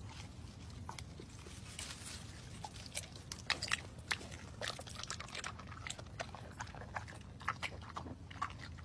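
Yellow Labrador retriever biting and chewing tomatoes picked from the plant: a quiet run of irregular small crunches and clicks, a few louder ones in the middle.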